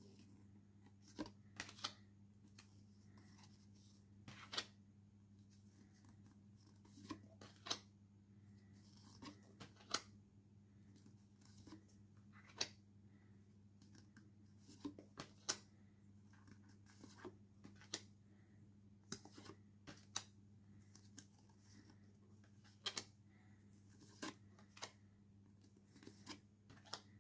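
Stiff postcards being slid past each other and flipped in the hands: short, irregular papery rustles and clicks every second or two, over a faint steady hum.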